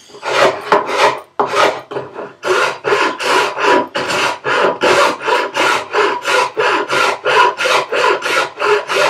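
Hand file rasping back and forth on wood, shaping a contour to fit a vise. A few slower strokes at first, a short pause, then a steady run of about three scraping strokes a second.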